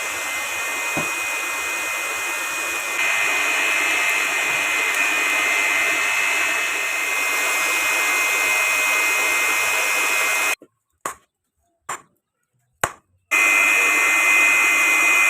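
A motor-driven shop machine running steadily with a loud rushing hiss and a steady high whine. It cuts off abruptly about two-thirds of the way through, a few sharp clicks follow, and it starts again about 13 seconds in.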